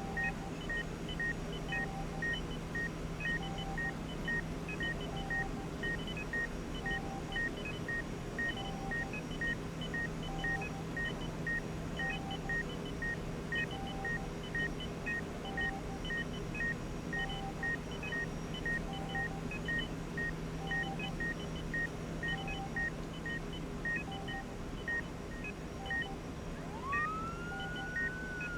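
Hospital medical equipment beeping: several monitors repeat short beeps at different pitches in steady patterns, the quickest about three every two seconds, over a low steady hum that stops a few seconds before the end. Near the end a siren starts, rising and then falling in pitch.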